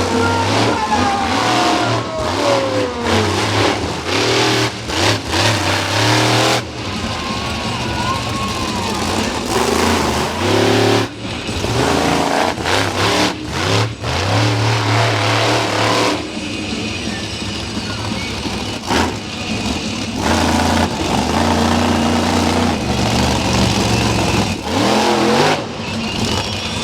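Monster truck engine revving hard in repeated bursts, its pitch climbing and dropping as the truck is throttled through two-wheel stunts.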